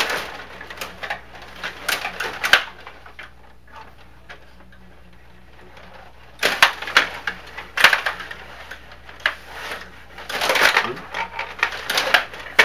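Stiga table hockey game in play: the rods and plastic players clacking and rattling as they strike the puck and the boards, in quick irregular clicks. The clicking eases off a few seconds in, then turns busy again from about six seconds in.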